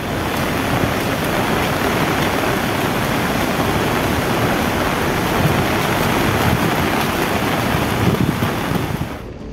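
Swollen, muddy river in flood rushing fast, a steady loud wash of water noise that cuts off just before the end.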